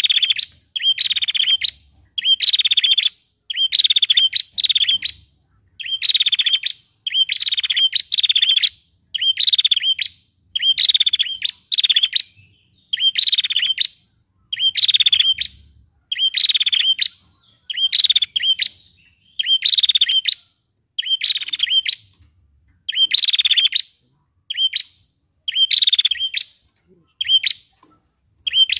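A female prenjak calling over and over: short, rapid trilled phrases about half a second long, repeated roughly every second and a half, sometimes in quick pairs.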